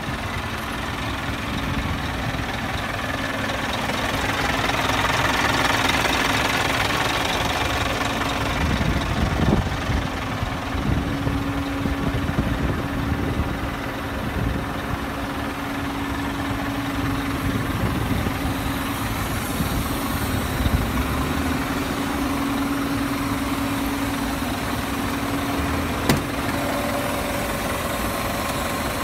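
Scania G480 truck's six-cylinder diesel engine idling steadily. A single sharp click sounds near the end.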